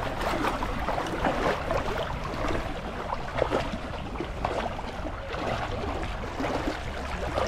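Water splashing and sloshing as legs wade through thigh-deep, clear spring water, in a continuous, irregular run of splashes.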